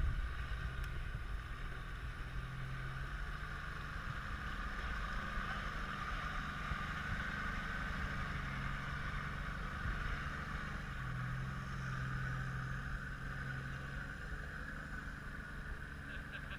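Four-wheel-drive engine running at low revs as the vehicle crawls through mud, its note swelling and easing with the throttle every few seconds.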